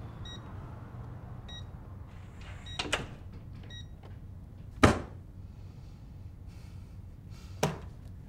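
Steady low room hum with a few short high-pitched chirps in the first four seconds and three sharp knocks, the loudest about halfway through.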